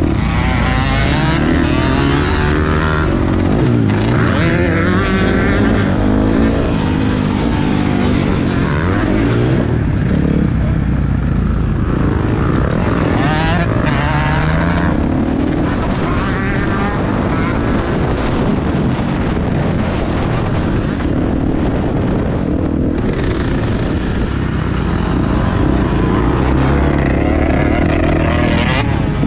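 Motocross bike engine heard close up from the rider's helmet camera, revving hard and easing off again and again as it races through the turns and bumps.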